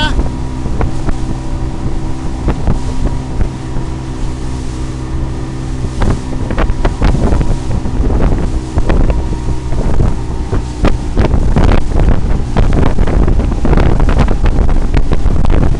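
Motorboat engine running steadily at speed while towing, with wind buffeting the microphone. The hull slaps and splashes through the wake and chop, more often in the second half.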